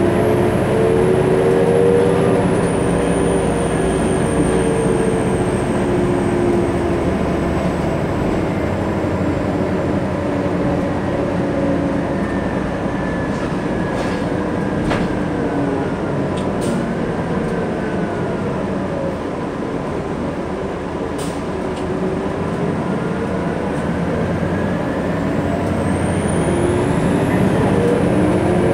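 Inside the cabin of a 2003 New Flyer D60LF articulated bus with a Detroit Diesel Series 50 EGR diesel engine and an Allison B500R automatic transmission, under way: a steady engine drone under road and body rumble. The engine note drops a couple of seconds in and rises again near the end.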